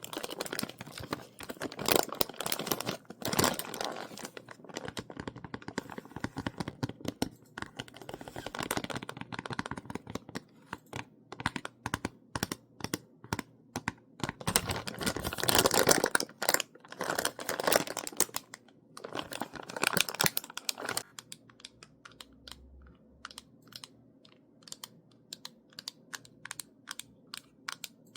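Close-miked ASMR tapping on assorted objects: rapid clicking taps mixed with crinkly rustling, dense for most of the stretch, then thinning to sparse, light taps for the last quarter or so.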